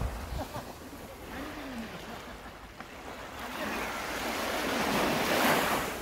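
Small sea waves lapping on a sandy beach. One wash swells up over the last couple of seconds and breaks onto the sand near the end. A brief wind rumble on the microphone at the start.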